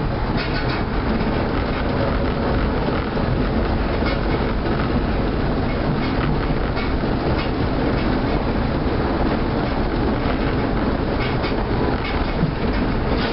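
Osaka New Tram rubber-tyred automated guideway train running along its concrete guideway, heard from inside the front of the car: a steady rumble of running noise with occasional light clicks.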